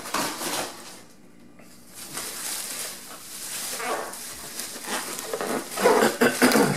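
Plastic bubble-wrap packaging crinkling and rustling as a wrapped parcel is handled and pulled at, louder near the end.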